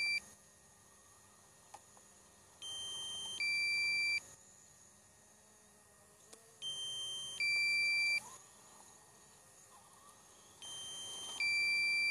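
DJI Mavic Pro low-battery warning alarm beeping: a higher electronic note and then a louder, lower one, the pair repeating about every four seconds, three times. It signals that the drone's flight battery is running low.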